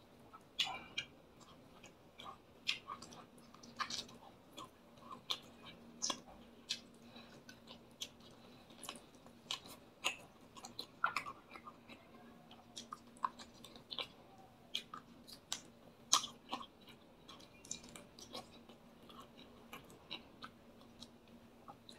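A man chewing fried fish and rice eaten by hand: irregular short smacks and soft crunches of chewing. A faint steady hum lies underneath.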